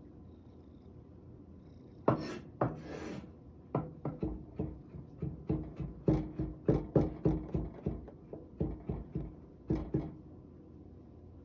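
Knife chopping carrot on a wooden cutting board: a couple of short scrapes, then a run of quick knocks, about three chops a second, that stops near the end.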